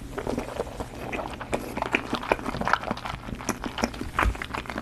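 Close-miked chewing of a mouthful of napa cabbage kimchi: irregular wet crunches and clicks.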